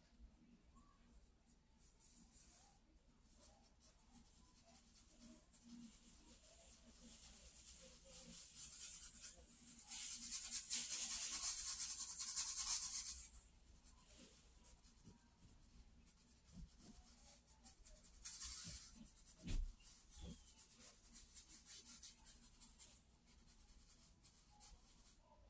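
Charcoal scraping across sketchbook paper in drawing strokes: faint short scratches, then a long scratchy stroke lasting about three seconds near the middle and a shorter one later. A soft low thump comes a little after the shorter stroke.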